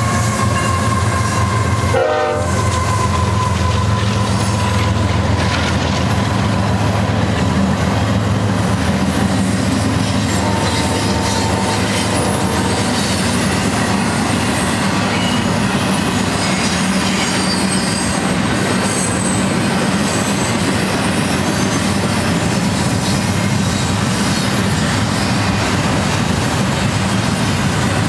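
GE ES44C4 diesel-electric locomotive passing close, its V12 diesel engine giving a steady low hum with a faint high whine, followed by loaded double-stack intermodal well cars rolling by with a continuous rumble and clickety-clack of wheels on rail.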